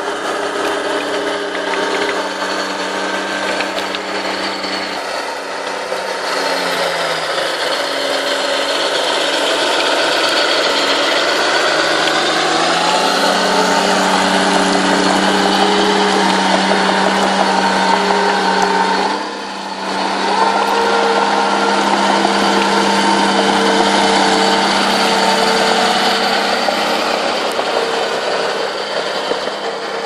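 Small crawler bulldozer's diesel engine running as the machine pushes soil with its blade. The engine note sags for a few seconds and then climbs back, with a short drop in level about two-thirds of the way through.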